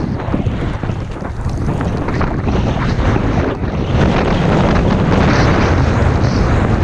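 Wind rushing over a GoPro's microphone while skiing downhill through deep powder, mixed with the hiss of the skis cutting through snow; the rush grows louder about halfway through as speed picks up.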